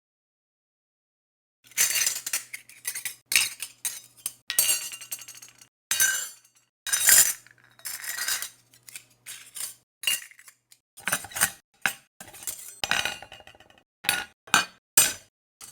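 A metal silver spoon clinking and scraping against a plate, starting a couple of seconds in: a long run of short, irregular clinks.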